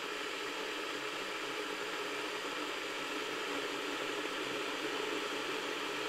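Electric water heater heating water: a steady, even hiss of the water working up toward the boil.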